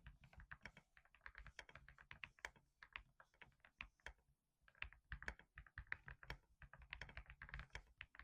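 Typing sound test on a Kemove T68E mechanical keyboard modded with Kiiboom switches and Womier keycaps: rapid, continuous keystroke clacks, with a brief pause about four seconds in.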